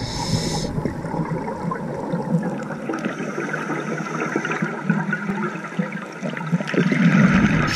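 Underwater gurgling and bubbling of scuba regulator exhaust bubbles, heard through an underwater camera housing. It swells louder near the end.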